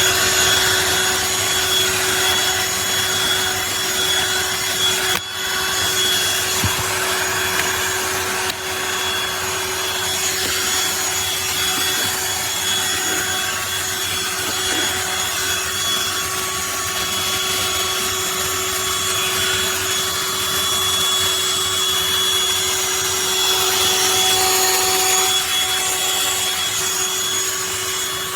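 BLACK+DECKER Dustbuster cordless handheld vacuum running steadily: a constant motor whine over a dense hiss. There are brief dips in the sound around five and eight and a half seconds in.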